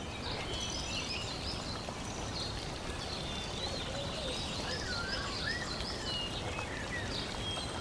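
Small birds chirping in a string of short, high calls over a steady background hiss, like a nature ambience bed.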